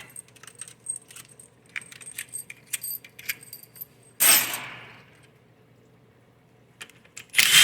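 Small metal bolts and parts clinking as they are handled and set down during a transmission valve body teardown, with a loud burst about four seconds in. Near the end a power driver starts to spin.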